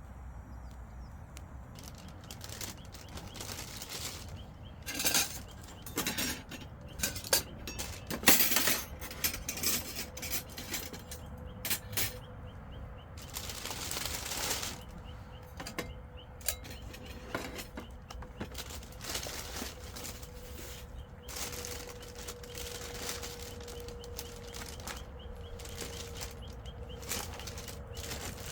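Irregular clicks, knocks and rustling, like objects being handled, busiest in the first half, with a faint steady hum in the second half.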